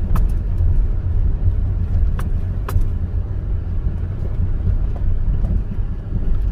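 Steady low rumble of a car driving slowly, with a few sharp clicks near the start and two or three seconds in.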